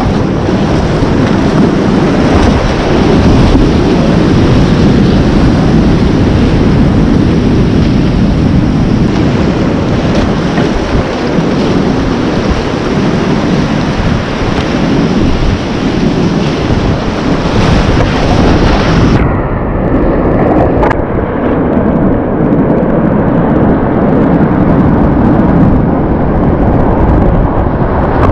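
Loud, steady rush of whitewater rapids around a kayak. About two-thirds of the way through it suddenly turns muffled.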